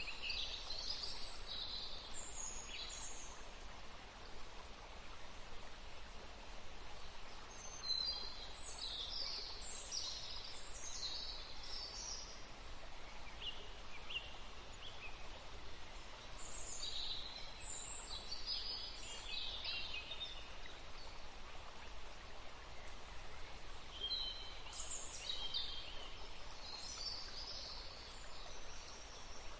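Small birds chirping in short clusters every several seconds over a steady, even hiss of background ambience.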